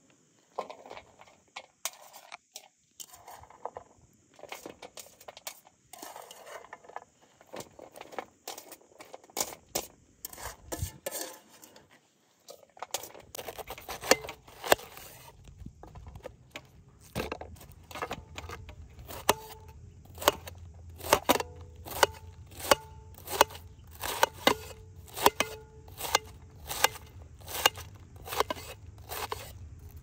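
Chef's knife slicing a head of white cabbage into a metal tray, at first in scattered cuts and rustles, then from just past halfway in a steady run of about two cuts a second, each ending in a click of the blade on the metal with a short ring.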